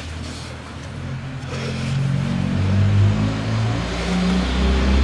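An engine running, its low hum shifting in pitch and growing louder from about a second in.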